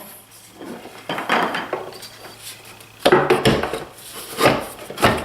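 Metal tool parts knocking and clinking against a solid-wood toolbox as they are handled and set in place, in several separate clatters.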